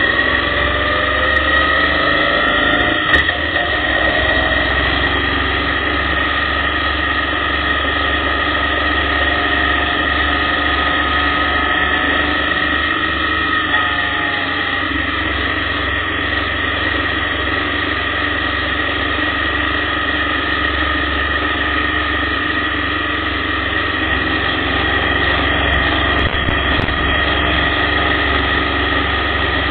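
Motorcycle engine running under way at a steady road speed, its pitch rising over the first few seconds and then holding level, over a steady low rumble of wind on the microphone.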